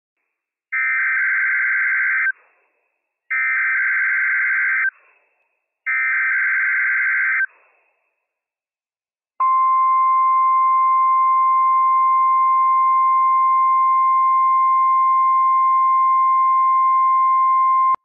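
NOAA Weather Radio Required Weekly Test: three short bursts of Emergency Alert System SAME header data, each about a second and a half long, then after a pause the steady 1050 Hz warning alarm tone starts about nine seconds in.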